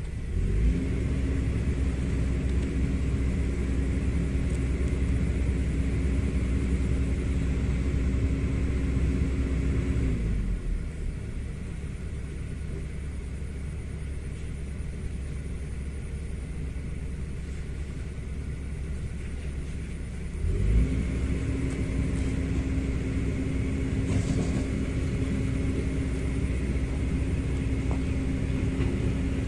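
A motor runs with a steady hum and rumble. It winds down and stops about ten seconds in, then starts up again about ten seconds later and keeps running.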